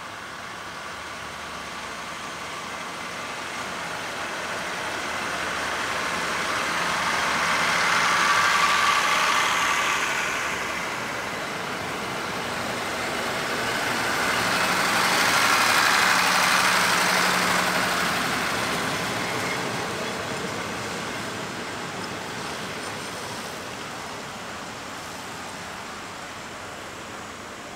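Vehicles passing by: a rushing, rumbling noise swells and fades twice, loudest about 8 seconds in and again about 16 seconds in.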